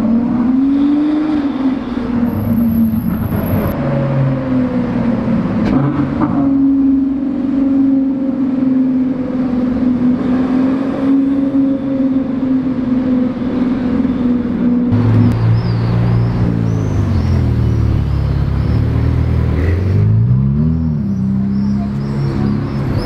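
Supercar engine and exhaust: it revs up at the start, then holds a steady note. About fifteen seconds in, it switches abruptly to a deeper engine note, which briefly revs up and falls back near the end.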